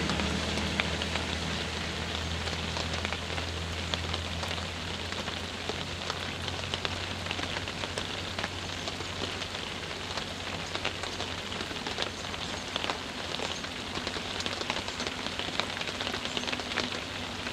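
Steady rain falling, an even hiss scattered with many small drop ticks. A low engine hum fades away over the first few seconds.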